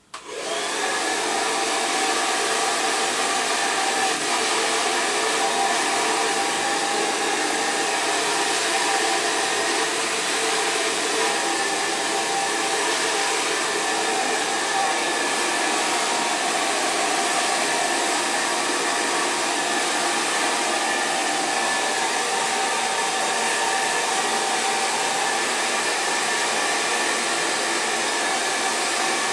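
GHD hair dryer with a diffuser attachment, switched on right at the start and then running steadily on medium heat: an even rush of air with a faint steady motor whine.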